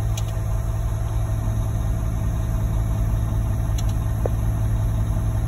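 Engine idling steadily, a constant low drone.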